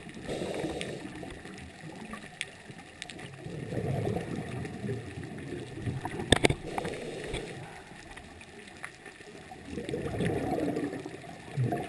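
Muffled underwater sound recorded through a dive camera's housing, with gurgling bubbles from a scuba diver's exhalations swelling every five or six seconds. A sharp click comes about six seconds in.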